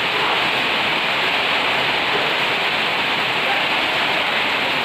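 Heavy rain falling on a corrugated metal roof: a loud, steady hiss that does not let up.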